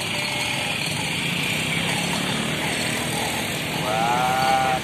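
Steady engine noise of passing road traffic. Near the end there is one short pitched call.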